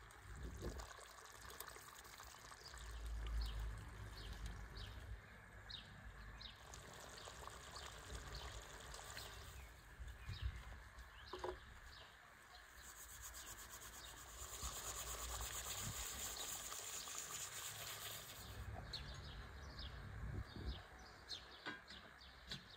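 Faint hiss and bubbling from rabbit stewing in a cast-iron kazan over a wood fire, with small birds chirping now and then.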